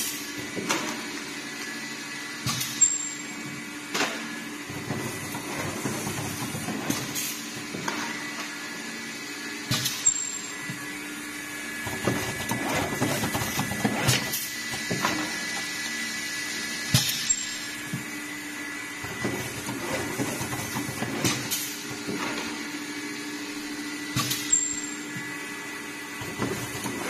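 Stand-up spout pouch filling and sealing machine running: a steady mechanical hum with repeated knocks and clicks, and a sharp brief hiss about every seven seconds as it goes through its cycle.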